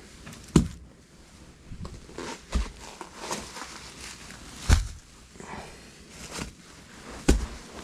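Furnace kit parts being set down and arranged on a surface: three sharp knocks, the first about half a second in, another near the middle and one near the end, with softer clattering and rustling of handling between them.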